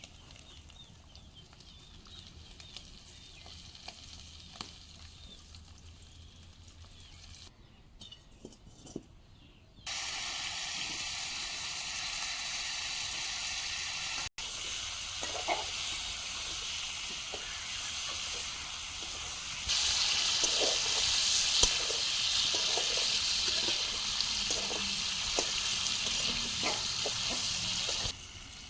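Magur fish curry sizzling in a pan, with light clicks of a spoon or spatula against the pan. The hiss jumps louder in sudden steps about a third of the way in and again about two-thirds in.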